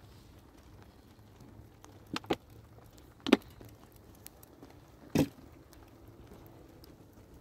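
A few sharp knocks at irregular intervals: two close together, a louder one about a second later, and a duller thud a couple of seconds after that.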